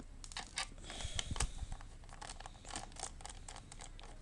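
Small screwdriver turning out a tiny screw that holds a laptop battery, giving irregular small clicks and scrapes, densest about a second in.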